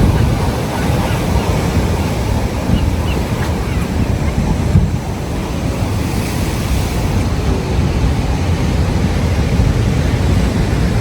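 Ocean surf washing on the shore, a steady rushing wash, with wind buffeting the microphone as a deep rumble.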